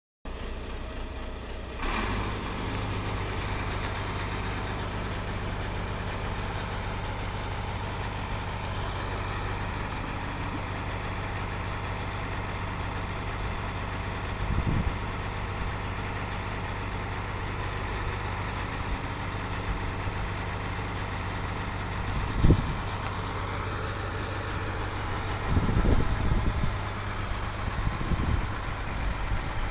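A car engine idling steadily with a low, even hum. There is a short sharp noise about two seconds in, and a few brief low bumps later on.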